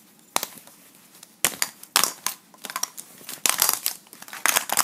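Plastic toy figures being handled and knocked about: irregular sharp clicks and crackling rustles, several louder clacks about two seconds in and near the end.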